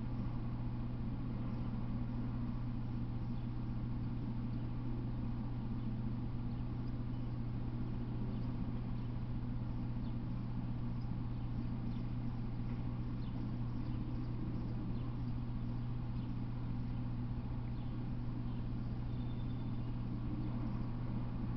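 A steady low hum at an even level, with faint scattered ticks and one short high chirp near the end.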